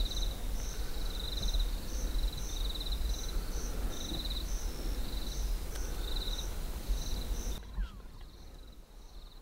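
Crickets or similar insects chirping in short trills that repeat every half second or so, over a low rumble. The whole sound drops off abruptly near the end.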